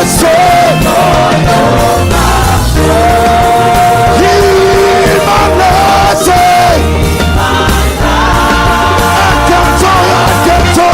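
Live praise-and-worship music from a full band, with long held sung or melodic notes over bass and drums.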